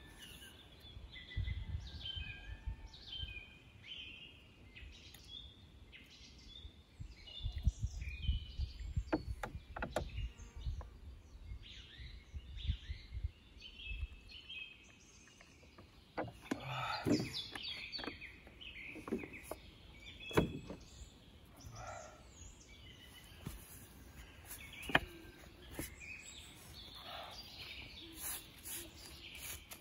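Small birds chirping and singing, with a few sharp knocks scattered through and stretches of low rumbling in the first half.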